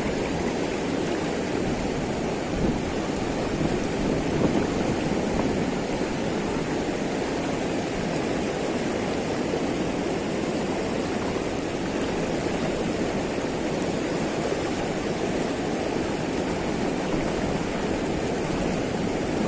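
Rapid current of a shallow river rushing steadily.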